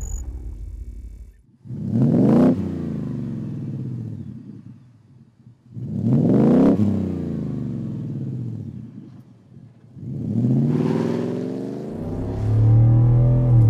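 2021 Ford F-150's 5.0 V8 through an MBRP Black Series cat-back exhaust, revved sharply three times, each rev rising quickly and falling back slowly. Near the end it settles into a steady, loud exhaust drone as the truck pulls away under throttle.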